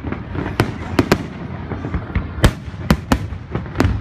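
Aerial firework shells bursting overhead in a string of sharp bangs, about seven in four seconds at uneven spacing, the loudest about halfway through, over a continuous low rumble.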